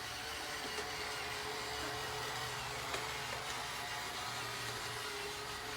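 Small electric motor of a remote-control toy train running steadily along its track: an even whirring hum with one held tone.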